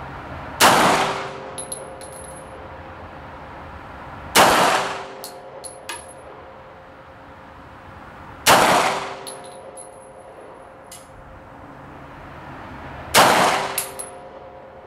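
Four pistol shots from a SIG P210 in 7.65 Parabellum, fired slowly and evenly about four seconds apart in a deliberate target series, each echoing briefly. After each shot come a few light metallic clinks of the ejected brass cases.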